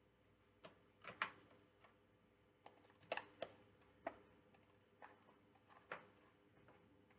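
Faint, irregular clicks and scratches of substrate being dug through in a small plastic tub.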